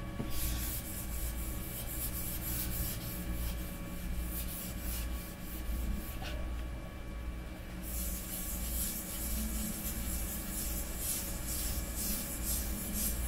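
Folded paper towel wet with isopropyl alcohol rubbing back and forth over a machined aluminium bed plate in quick repeated strokes, scrubbing grime off the surface, with a pause of about a second and a half around the middle.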